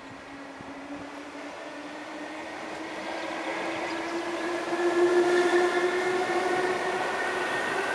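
DART 8300 class electric multiple unit pulling away and accelerating, its electric drive whining in several tones that rise in pitch together. It grows louder as it comes on and is loudest about five seconds in, as it passes close by.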